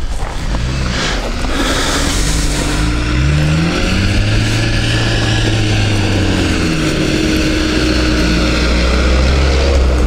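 Renault Duster's engine running as the SUV drives up a grassy slope and pulls up close. The engine note wavers up and down in the first few seconds, then settles into a steady drone.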